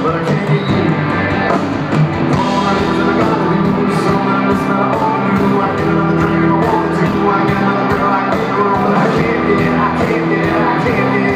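A country-rock band playing live, with electric guitars, drums and a lead vocal, recorded from within the crowd.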